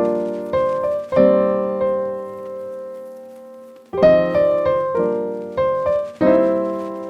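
Background piano music: a few notes and chords struck and left to ring and fade, with a long held chord dying away in the middle before the notes start again.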